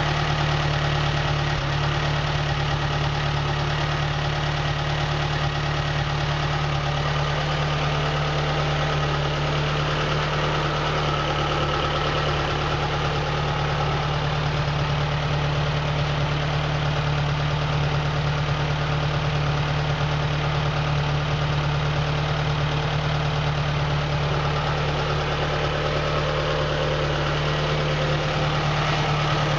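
Rush Super petrol engine on a test stand running at a steady idle, with an open exhaust silencer and a fan. It is being test-run after a water pump repair. The sound is an even hum with no revving or misses.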